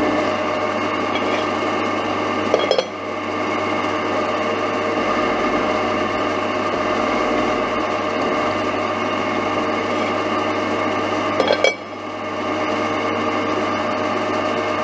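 Milling machine running, its end mill cutting a slot in steel channel: a steady machine whine with several held tones over a low hum. Twice, about two and a half seconds in and again near the end, a brief clatter is followed by a short dip in the sound before it builds back up.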